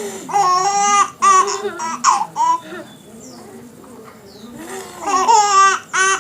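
Baby laughing in high-pitched bursts: a run of three or four laughs, a pause of about two seconds, then another run near the end.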